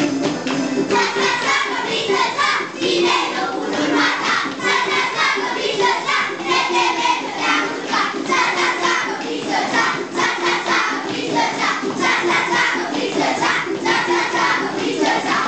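A group of children singing and shouting together over music with a steady, quick beat.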